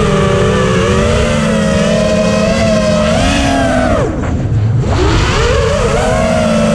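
Hobbywing 2405 2250kv brushless motors on a 6-inch FPV quadcopter with three-blade props whining in flight, the pitch wavering as the throttle moves. About four seconds in the pitch drops steeply as the throttle is cut, then climbs back as it is punched again, over a steady low rumble of wind and frame vibration.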